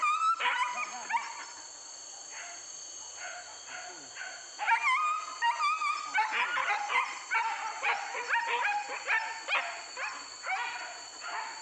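Hunting dogs yelping and baying on the chase of a wild boar. A burst of high yelps opens, then comes a short lull, then rapid, repeated yelps from about five seconds in.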